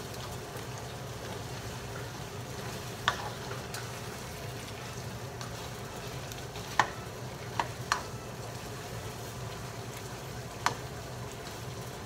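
Browned chicken pieces sizzling in a nonstick frying pan as they are stirred with a plastic slotted spoon. Five sharp knocks of the spoon against the pan stand out, two of them close together near the middle.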